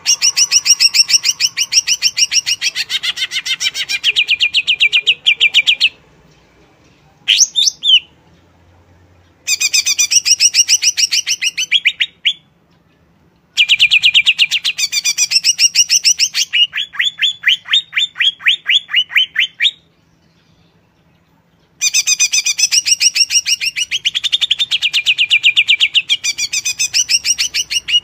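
Greater green leafbird (cucak ijo) singing loud, fast volleys of high, sharp repeated notes, about eight a second. The volleys come in phrases of a few seconds broken by short pauses, with one brief rising-and-falling whistle in one of the gaps.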